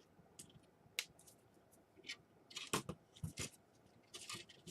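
Hands handling small laptop parts and tape: scattered light clicks and taps, a cluster of knocks past the middle, and a short rustle near the end.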